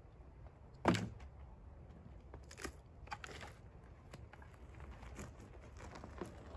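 Split firewood being handled: one heavy wooden thunk about a second in, then a few lighter scattered knocks and clacks.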